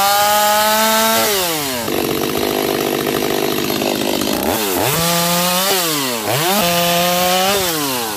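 Gas chainsaw revving at full throttle and cutting slabs off the side of a log. The engine note drops and turns rough and grating while the chain is deep in the wood, then revs up and down several times and falls back near the end.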